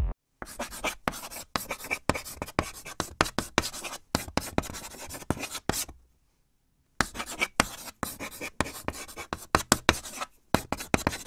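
Pen scratching on paper in quick, irregular writing strokes, pausing for about a second midway.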